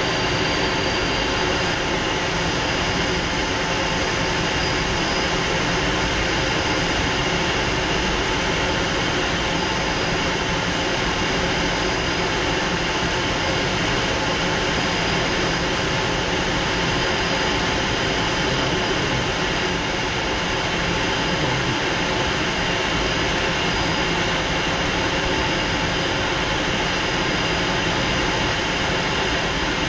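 Fouga Magister's twin Turbomeca Marboré turbojets and rushing airflow heard inside the cockpit in flight: a steady, unchanging engine noise with a constant high whine.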